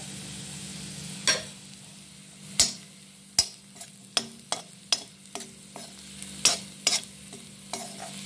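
Slotted metal spatula scraping and clinking against a kadai while stirring prawns frying in oil, over a steady sizzle. There is about a dozen irregular sharp scrapes and knocks, starting about a second in.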